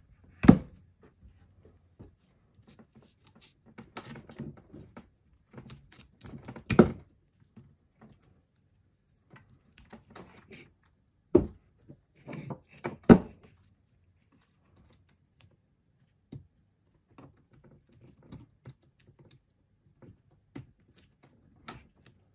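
Sealed lead-acid battery blocks being handled and set into a plastic battery tray: four sharp thunks spread through, with quieter handling, scraping and rustling of wires between.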